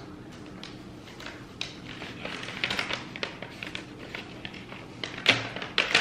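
Paper rustling and crackling as a folded letter is pulled from its envelope and unfolded by hand, in quick dry crinkles with the sharpest ones near the end.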